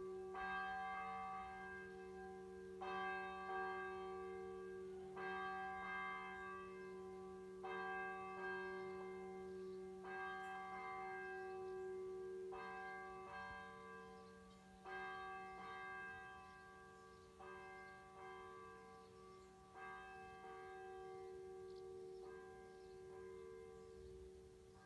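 A church bell tolling slowly, one stroke about every two and a half seconds, each stroke ringing on with a low hum into the next; the strokes grow fainter toward the end.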